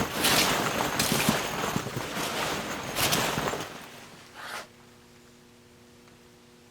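Rustling and scraping from objects being handled close to the microphone, with short knocks, for about four seconds. It then stops suddenly, leaving a faint steady electrical hum.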